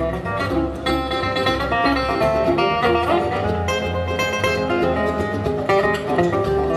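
Country-style music with plucked string instruments over a steady low beat.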